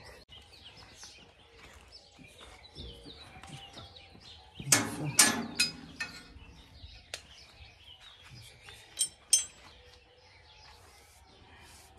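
Small birds chirping in the background, with a cluster of sharp knocks and clanks about five seconds in and two sharp clinks a little after nine seconds.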